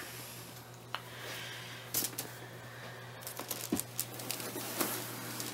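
Cloth rustling with scattered light clicks and knocks as a doll in a soft sleeper is handled and settled into a fabric-lined wicker basket.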